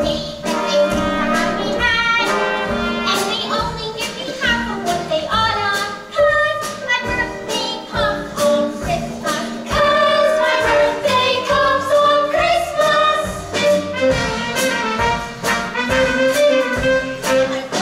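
A group of young voices singing a musical theatre Christmas number over a brass-led accompaniment with a steady beat.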